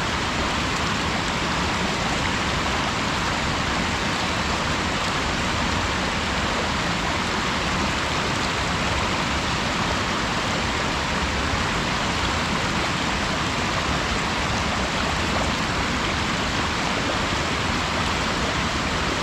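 Waterfall: water falling and splashing in a steady, unbroken rush, more hiss than rumble.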